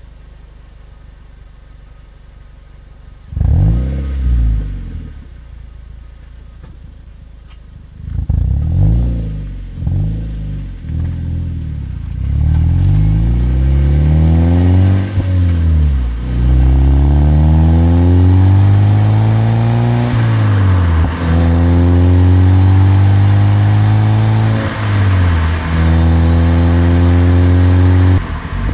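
Mazda MX-5's four-cylinder engine through a BBR aftermarket back box exhaust: idling, then blipped twice and revved several times in quick succession. It then accelerates hard, the revs climbing in long pulls and dropping suddenly at each of several gear changes.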